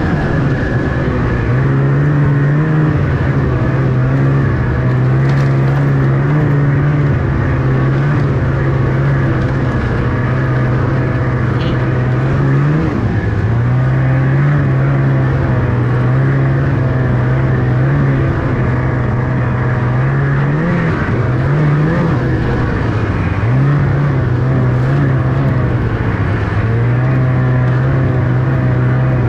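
Snowmobile engine running steadily under way, its note holding at a fairly even pitch with brief rises and dips in revs a few times.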